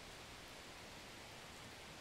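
Oil sizzling faintly around breaded chicken pieces deep-frying on a low flame: a steady, even hiss.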